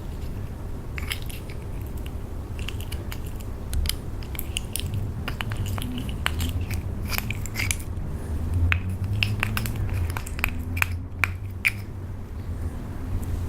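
Slime being squished and kneaded by hand, making many small, irregular sticky clicks and pops over a low rumble.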